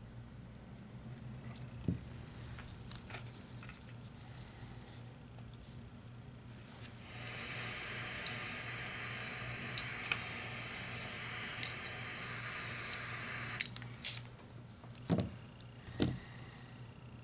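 Small metallic clicks and light rattles of pliers, a helping-hands clamp and wire being handled at a soldering bench, over a steady low electrical hum. A steady hiss runs for about seven seconds in the middle, and a couple of heavier knocks come near the end.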